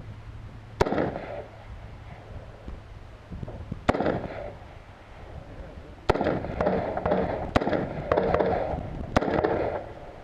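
Rifle shots fired at a slow, uneven pace: single shots about a second in and near four seconds, then a quicker string in the second half. Each crack is followed by a short echo.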